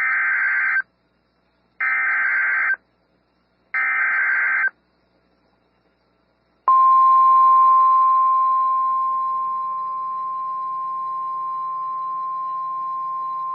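Emergency Alert System SAME header: three short data bursts about a second apart, the first already under way, then after a pause of about two seconds the steady 1050 Hz NOAA Weather Radio warning alarm tone starts and holds.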